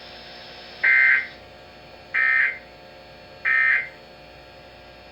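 Three short bursts of Emergency Alert System digital data tones, about a second and a half apart: the End of Message code that closes the special marine warning.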